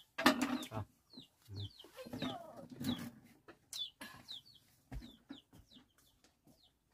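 Chickens: chicks peeping in many short, high calls that fall in pitch, with louder lower clucks and a few knocks mixed in.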